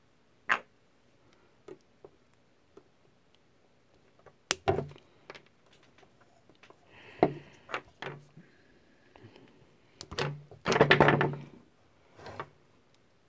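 Hands handling a thin insulated wire and a hand cutting tool: scattered sharp clicks and snips, with a short dense scraping burst near the end as the wire end is worked.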